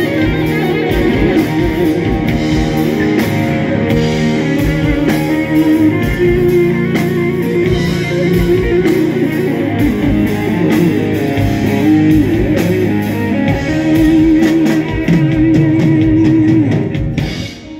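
Live rock band playing: two electric guitars, a Stratocaster-style and a Les Paul-style, play bending lead lines over drums. The music drops away sharply near the end.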